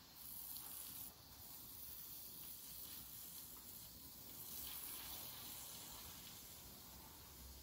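Very quiet room tone: a faint, steady hiss with no distinct events.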